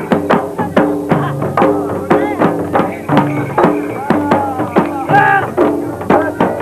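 Drum music with a steady beat of about two and a half strokes a second over held melody notes, and a voice calling out briefly about five seconds in.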